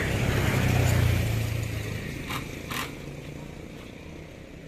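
A vehicle engine's low rumble, loudest about a second in and then fading away, with two short scrapes or knocks a little under three seconds in.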